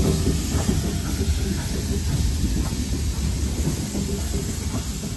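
C38-class streamlined steam locomotive 3801 rolling past at close range: a low rumble under a steady hiss of steam, with a few faint wheel clicks. It grows slightly fainter as the engine moves on and the tender and carriages follow.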